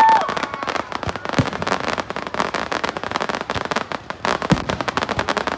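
Fireworks going off: dense, rapid crackling with a few deeper booms mixed in.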